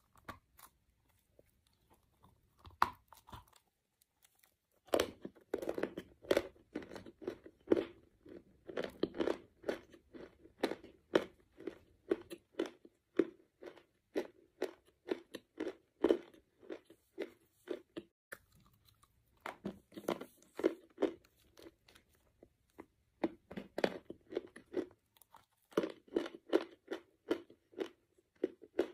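White calaba (edible clay) being bitten and chewed, a run of crisp crunches. A few crunches in the first seconds, then steady, rapid crunching, with a couple of short pauses partway through.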